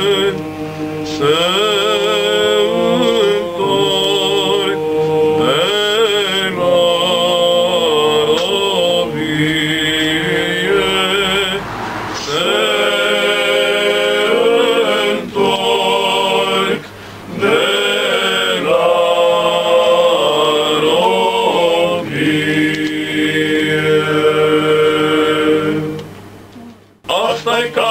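Male vocal ensemble singing a Romanian carol (colindă) a cappella: winding, ornamented melody lines over steady held notes. The singing breaks off briefly about 26 seconds in, then starts again.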